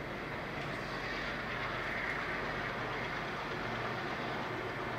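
MLW diesel freight locomotive running at a distance: a steady engine drone under an even hiss, swelling slightly about two seconds in.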